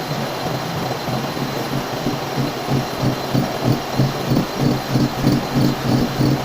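Milling machine running with a low hum; about halfway through, an even pulsing of roughly three beats a second sets in, with a faint steady high whine throughout.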